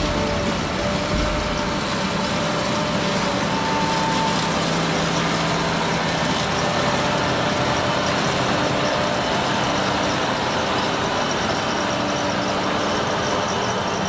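Self-propelled four-row potato harvester working close by: a steady, dense rattle of soil and stones passing through its digging share and sieving webs, over the hum of its engine.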